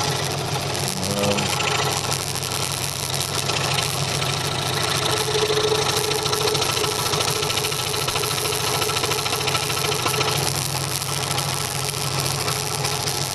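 Delta scroll saw running at speed, its blade stroking up and down rapidly as it cuts out a letter; a steady, even machine buzz throughout.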